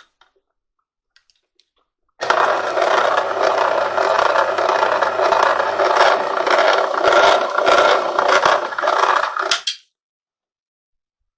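CO-Z electric wire stripping machine running with cable fed through it: a low motor hum under a loud, continuous scraping rattle as the rollers and blades work the wire. It starts abruptly about two seconds in and stops sharply after some seven seconds.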